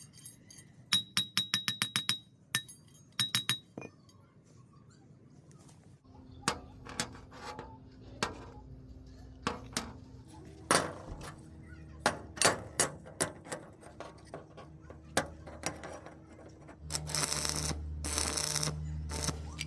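Metal clinking in quick runs of light taps with a ringing note, then scattered knocks over a faint hum. Loud crackling noise in bursts near the end.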